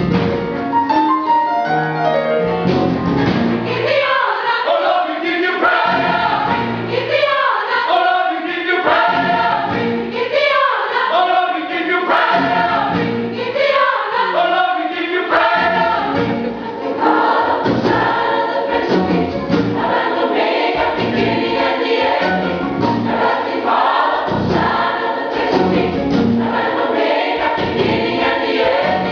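Gospel choir of men and women singing together, a lively sung passage that runs on throughout.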